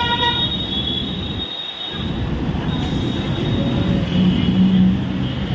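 Busy road traffic running past, a dense steady rumble of engines and tyres. A vehicle horn ends just after the start, and a lower, horn-like tone sounds for about a second near the end.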